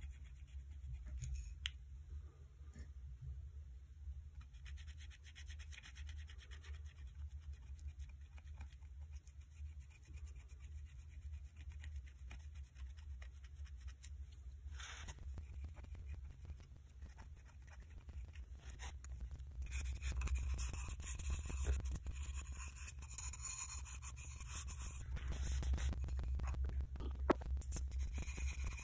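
Light scratching and rubbing of a thin bamboo spatula worked along a crack in a glazed ceramic bowl, spreading urushi lacquer. The strokes get louder and busier about two-thirds of the way in, over a steady low hum.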